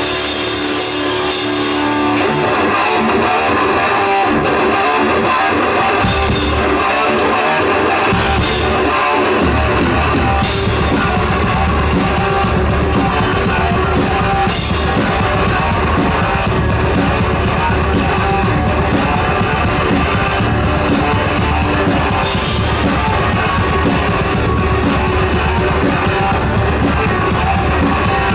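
Live thrash metal band playing an instrumental passage with distorted electric guitars, the full drum kit with cymbals coming in about ten seconds in and driving a fast, steady beat.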